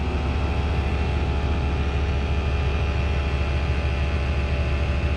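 Air Lift WirelessONE onboard air compressor running steadily, inflating the Air Lift 7500XL rear suspension air bags toward 45 psi. It makes a steady, unbroken low drone.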